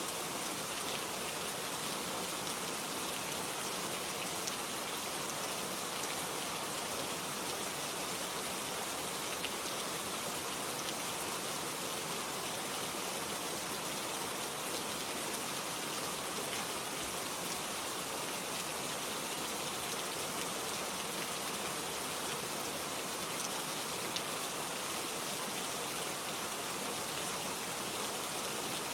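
Steady rain falling, a constant dense hiss with faint scattered drop ticks.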